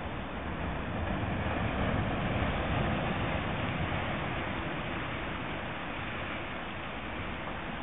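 Sea surf rushing steadily, swelling louder about two seconds in as a small wave breaks, then easing back.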